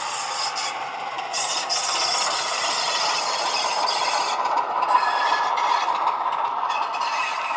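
Model Bachmann Class 24 diesel locomotive's LokSound sound decoder playing a Sulzer diesel engine sound through its small speaker, with the rattle and scrape of the model's wheels and a train of model wagons on the track. It is loudest about halfway through, as the train passes close by.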